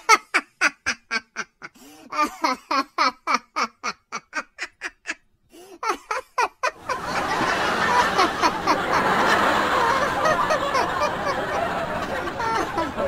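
Goose-like honking in quick repeated calls, about three or four a second, with short breaks. From about seven seconds in it turns into a louder, dense clamour of many overlapping sounds.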